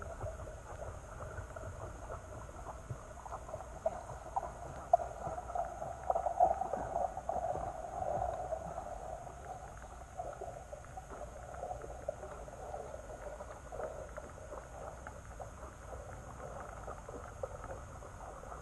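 Underwater river sound picked up by a submerged GoPro Session: a low muffled rumble of the current with many small ticks and crackles, busier and louder from about four to nine seconds in.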